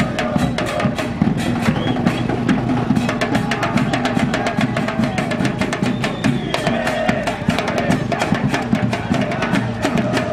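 Fast, steady drumming with voices singing a tune over it.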